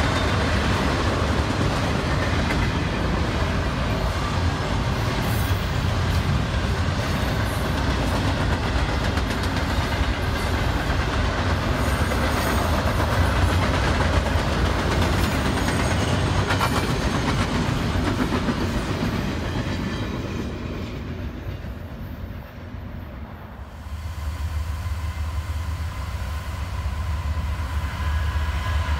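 Freight cars rolling past on the rails, a steady rumble with wheels clicking over rail joints. The sound dies away about 20 seconds in, and a few seconds later a second freight train is heard rolling past close by.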